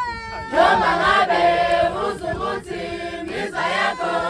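A group of voices singing together in a chant-like song, starting about half a second in.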